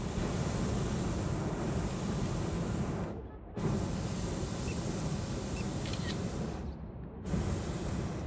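Hot-air balloon burner firing in long blasts of rushing noise, each starting and stopping abruptly, with brief breaks about three seconds in and again near the end.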